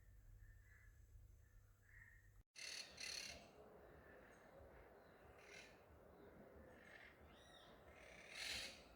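Faint birds chirping in woodland: short, scattered calls. After a sudden cut about two and a half seconds in, a few brief hissy bursts are heard among the calls.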